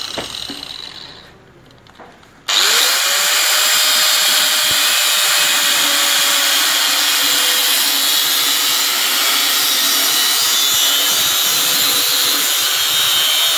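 Angle grinder with a cutting disc cutting through a Piaggio Typhoon scooter's rusted steel exhaust elbow: a steady, loud grind over the motor's whine. It cuts in suddenly about two and a half seconds in, after a short lull.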